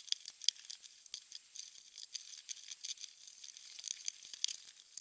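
Faint, irregular small metal clicks and ticks of hand tools working as the toggle clamps' mounting bolts are screwed down.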